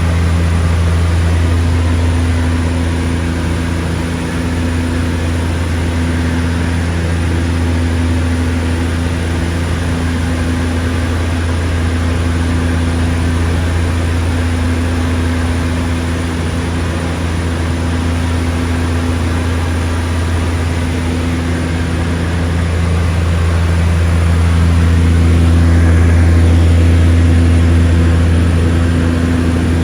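Seaplane engine and propeller droning steadily, swelling a little louder near the end.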